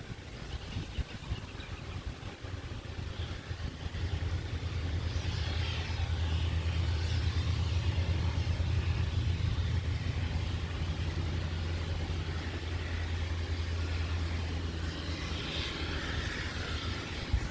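A vehicle engine running with a steady low hum, growing louder about four seconds in and easing off near the end.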